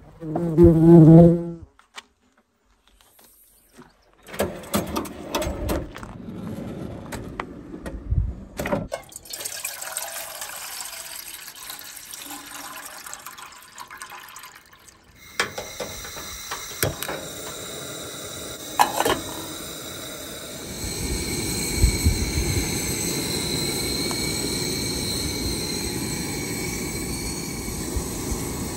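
A short squeak from the Jeep's rear door at the start, then clicks and handling sounds. Water is poured from a plastic jug into a metal pot, and after a click the two-burner camp stove's burner is lit and burns with a steady hiss.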